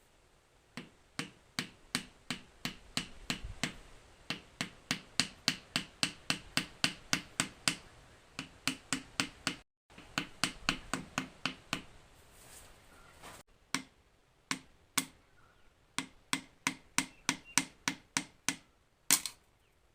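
Piston being tapped down through a ring compressor into a Ford 3000 cylinder: a long run of sharp, even knocks, about three a second, with a short break partway through.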